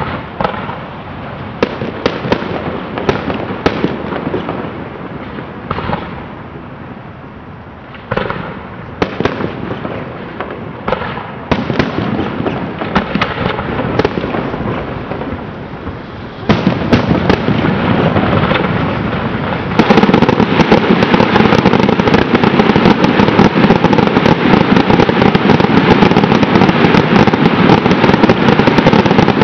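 Fireworks display: aerial shells bursting with scattered bangs and crackle. About halfway through it builds into a louder, dense, continuous barrage of rapid reports and crackling.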